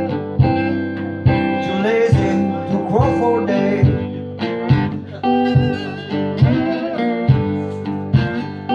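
Resonator guitar played with a metal slide: a slow blues figure of plucked notes, struck a little over once a second, with a sliding glide in pitch about three seconds in.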